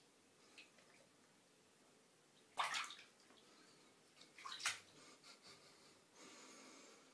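Two cats' paws scrabbling and skidding on the slick surface of an empty bathtub as they chase each other: two short, sudden scrapes about two seconds apart, with lighter taps around them and a softer rustle near the end.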